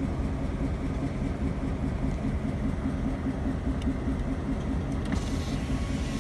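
Delaware and Hudson diesel locomotive engine idling with an uneven, stumbling beat: it is misfiring, which the railfan suspects comes from faulty injectors.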